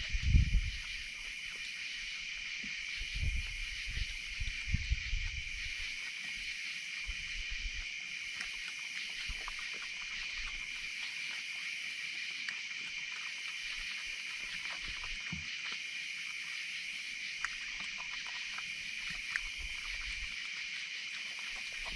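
Night insect chorus: a steady high trill with a higher chirping that pulses about once a second. Over it come small clicks and a few low thumps, the loudest about half a second in, from a raccoon and an opossum eating at a wooden table.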